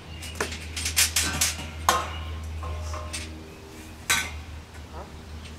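A series of sharp clattering knocks of hard objects, several in quick succession in the first two seconds and one loud knock about four seconds in, over a low steady rumble.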